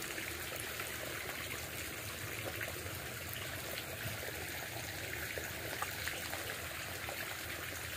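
Small creek trickling steadily.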